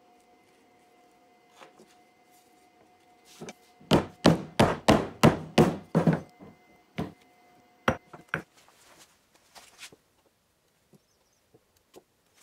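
A wooden inlay plug being hammered down into its glued pocket in an end-grain cutting board: a fast run of about eight sharp blows on wood, about four a second, then a few lighter taps.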